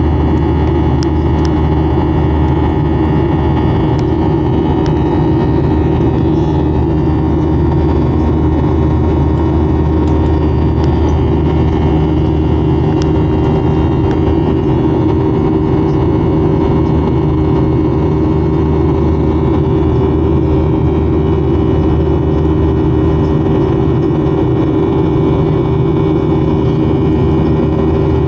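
Steady drone of a jet airliner's turbofan engines and rushing air, heard inside the cabin at a window seat beside the engine, with a low hum running through it.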